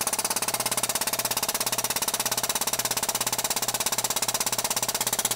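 Air-over-hydraulic pump running with a rapid, even pulsing chatter over a low hum as it drives the ram of a hydraulic hole punch.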